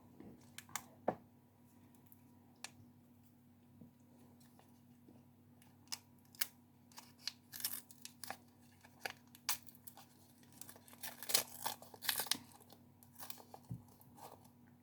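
Crinkly plastic sweet or snack wrapper being handled and torn open close to the microphone: a few sharp crackles at first, then dense runs of crackling and tearing through the second half.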